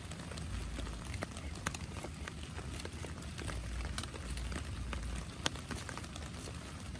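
Knife chopping on a wooden cutting board: irregular sharp taps of the blade striking the board, over a steady hiss.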